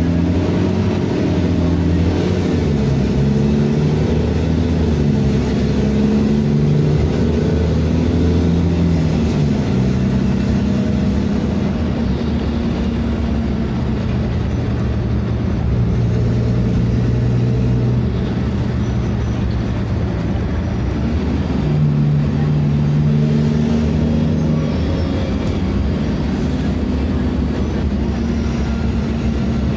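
Cummins ISBe 6.7 straight-six diesel of a city bus with an open exhaust, heard from inside the cabin. Its revs rise and fall through several automatic gearshifts during the first third, then hold steady and lower, and rise again a little past two-thirds of the way.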